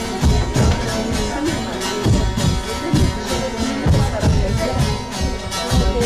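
Anatolian folk music of a semah, played on a strummed long-necked lute (bağlama) in a steady beat of about two strokes a second, in an instrumental passage without singing.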